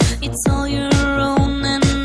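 Live pop band playing an instrumental passage: a steady four-on-the-floor kick drum about two beats a second under a held keyboard chord, with cymbal hits.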